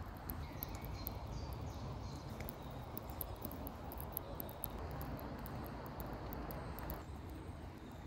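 Outdoor nature ambience: a steady low rumble with fast, high-pitched insect ticking and a few faint bird calls in the first half.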